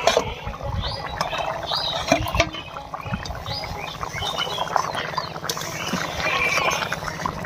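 Prawn curry bubbling and popping at a steady simmer in a karai, with a metal scrape at the start as the aluminium plate lid is lifted off.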